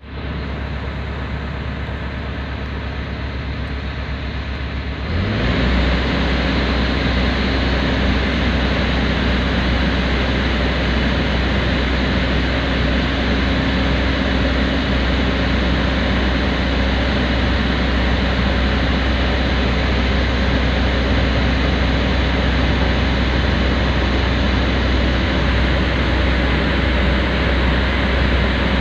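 Engine of a heavy construction vehicle running steadily, heard from inside its cab, with a strong low drone. It gets louder about five seconds in and then holds steady.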